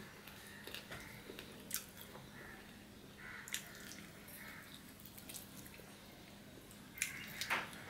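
Close, wet eating sounds of a person eating polao rice and fish curry by hand: rice being squished and mixed by fingers on a steel plate, then chewing and lip smacks, with scattered small clicks that are loudest near the end. A faint steady hum lies underneath.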